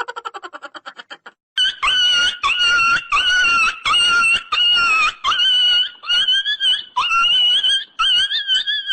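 A funny ringtone plays: about a second and a half of rapid stuttering pulses falling in pitch, then a long string of high-pitched animal-like calls, each about half a second long, nearly two a second.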